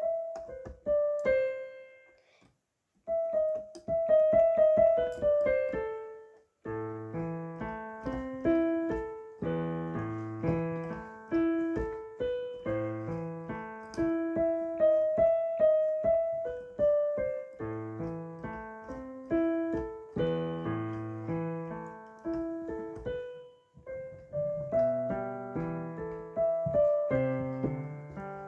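Piano playing a tune: a few single notes, a short pause, then a melody with lower chords beneath it from about six seconds in.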